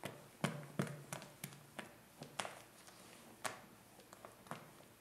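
A utensil stirring soft chocolate mousse, cream and ganache, quickly in a bowl. It makes irregular soft taps and knocks against the bowl's side and rim, with faint scraping between them.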